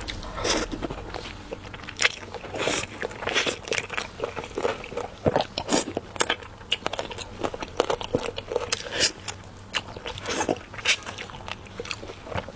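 A person biting and chewing crunchy food close to the microphone, with irregular sharp crunches and crackles.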